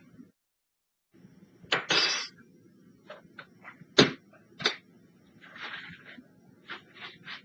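Clatter of things being handled at a kitchen counter: a run of separate knocks and clicks, the sharpest about four seconds in, with short scraping rustles about two and six seconds in.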